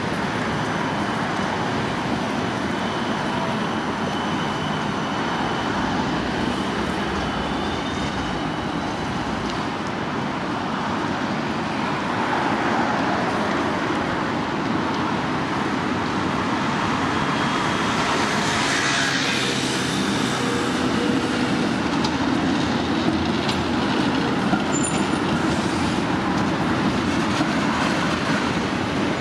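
Steady city street traffic: cars, buses and trams passing a busy crossing, with the noise swelling as a vehicle goes by close about two-thirds of the way through. A tram comes through near the end.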